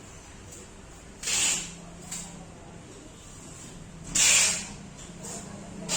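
Industrial ceiling fan running with a steady low hum. Two short hissing bursts come about a second and four seconds in, with another starting at the very end.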